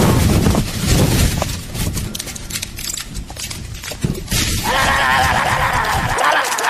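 Horror-play sound effects: a low rumble with scattered crackles, then about four and a half seconds in a high, wavering, neigh-like cry.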